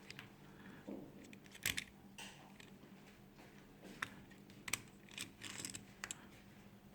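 Scattered small clicks and taps of plastic parts being handled while the battery is fitted back into an opened PS4 wireless controller, the sharpest about two seconds in and again near five seconds.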